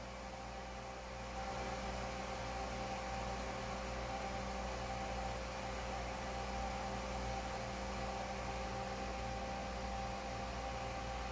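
The 5-inch muffin fan on a thermoelectric generator's heat sink running steadily, with a few constant tones over an airflow hiss. The fan is powered by the generator itself. It gets slightly louder about a second and a half in.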